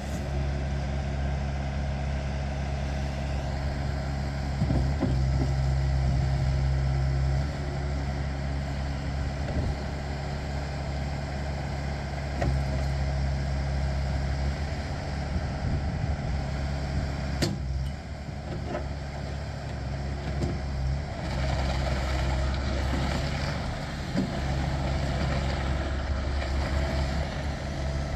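A Bobcat S160 skid steer loader's four-cylinder turbo diesel running at work, its engine speed rising and falling in stretches, with a single sharp clank partway through.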